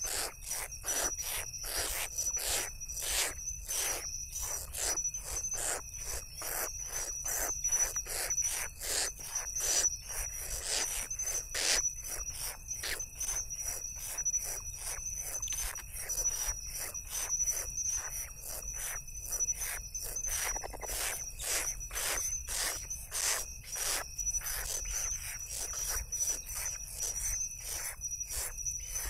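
Night insects: a steady high cricket trill, with a fast run of short rasping pulses about two to three times a second that never stops.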